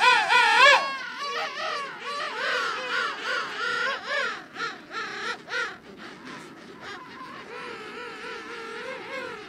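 King penguins calling in a colony: loud calls with a rapidly wavering pitch in the first second, then many overlapping calls from different birds, settling into a softer chorus in the second half.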